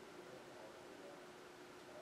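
Near silence: room tone, a faint even hiss with a faint steady hum.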